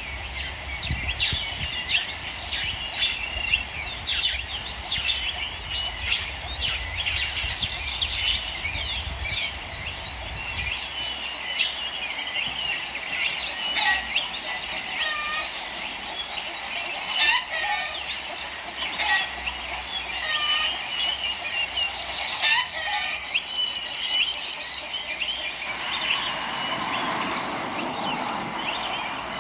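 Birds chirping and singing in a dense chorus, with a few louder calls about 14, 17 and 22 seconds in. A low rumble sits under the first third.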